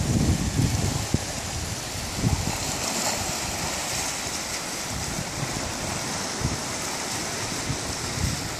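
Sea surf washing and breaking against shoreline rocks, a steady rush of water, with wind buffeting the microphone in low thumps near the start and about two seconds in.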